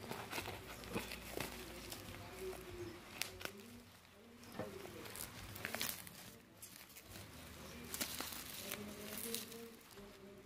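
Parcel wrapping of brown paper, tape and bubble wrap crinkling and tearing as it is pulled and picked open by hand, a run of irregular crackles and rips.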